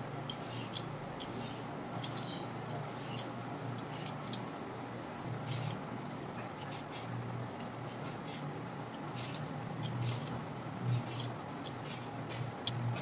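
Handheld vegetable peeler scraping strips off a cucumber and a carrot in quick, irregular strokes, over a steady low hum.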